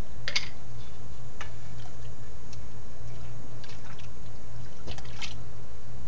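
Dissolved borax solution poured from a glass jar into a plastic bucket of water, with a few short, scattered splashes and drips over a steady low hum.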